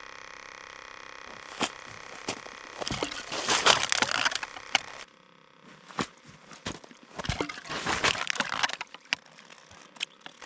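Crackling and scraping handling noises in two longer bursts, with scattered sharp clicks between them, as a hooked pike is worked up to the hole in the ice.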